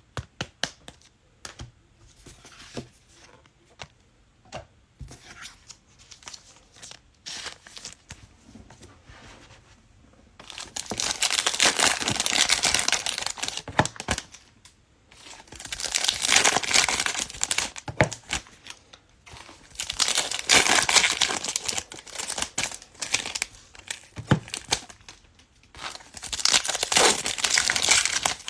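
Trading card packs being torn open, their plastic wrappers crinkling and crumpling in four loud rustling stretches after several seconds of light clicking card handling.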